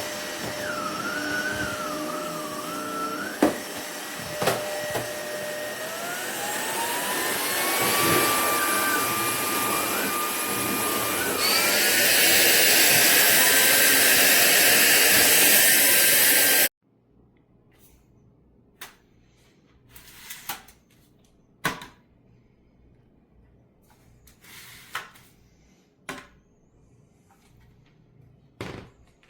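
SMOTURE cordless stick vacuum motor running. Its whine climbs in pitch as the motor speeds up, and a little over a third of the way in the suction grows louder and hissier. The motor cuts off abruptly about two-thirds of the way through, followed by a few faint clicks and knocks.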